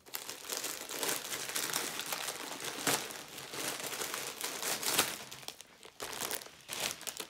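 Plastic mailer bag and the clear plastic bag inside it crinkling and rustling as they are pulled open and handled, with sharp crackles and a short lull before the last crackles.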